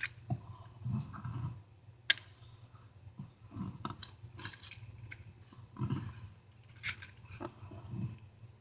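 Irregular rustling and light clicks of small items and packaging being handled and packed, with one sharp click about two seconds in.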